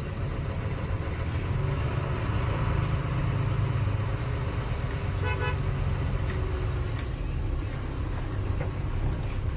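Truck engine running with a steady low rumble, heard from inside the cab in stop-and-go traffic. A vehicle horn gives a short toot about five seconds in.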